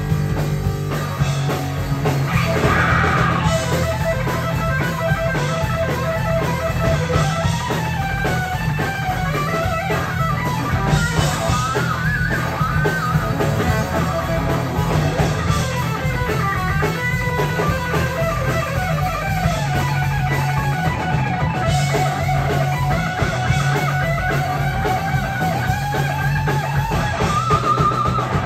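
Live rock band playing an instrumental passage: electric guitar lines over bass guitar and drum kit, with no vocals.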